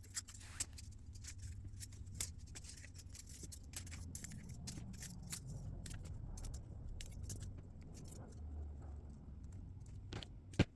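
Faint, irregular crinkling and clicking of thin copper foil being handled and wrapped around the teeth of a comb.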